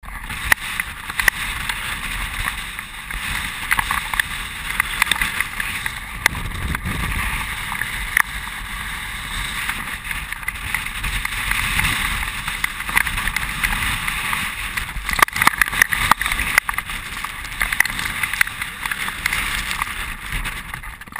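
Strong gusting wind on the camera microphone, a steady loud rush with a low rumble and scattered sharp knocks.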